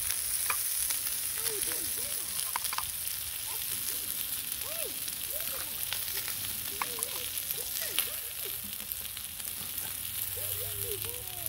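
Chops sizzling on a hot stone slab over a wood fire, a steady hiss of frying fat. Metal tongs click and scrape as they lift the chops off the stone, with one sharp click about eight seconds in.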